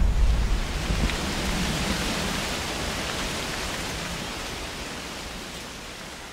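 A steady, even hiss of noise, like rain or rushing air, with no tune or rhythm, fading gradually throughout.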